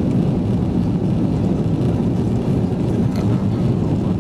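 Steady drone of a jet airliner's engines and rushing air heard inside the passenger cabin during the climb after takeoff.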